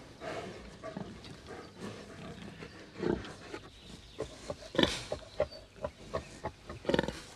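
Domestic pigs grunting: a string of short, low grunts, the loudest about three, five and seven seconds in.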